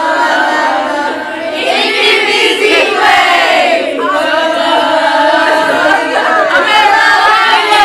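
Many girls' voices sounding together in chorus, loud and drawn out, the pitch wavering up and down, with a falling slide about three seconds in.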